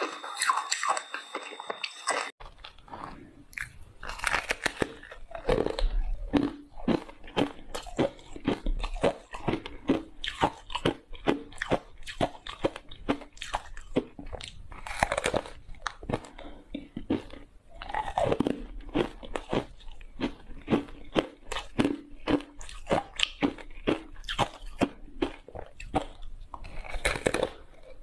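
Close-up crunching and chewing of ice coated in matcha powder: a dense run of sharp, irregular cracks as the ice is bitten and ground between the teeth. The sound shifts abruptly just over two seconds in.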